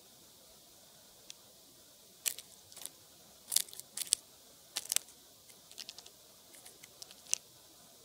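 Clark's nutcracker foraging close to the microphone: its bill pecks and probes the mossy ground and needle litter, giving light, sharp clicks and crunches in irregular clusters from about two seconds in.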